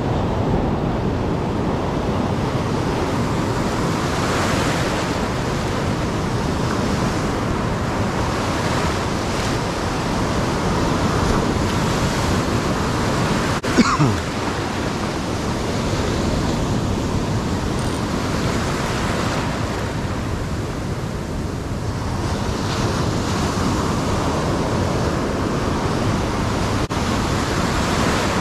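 Ocean surf breaking and whitewater rushing around the angler's feet, a steady wash that swells and eases every few seconds. About halfway through there is one short sharp knock with a brief falling whoosh, the loudest moment.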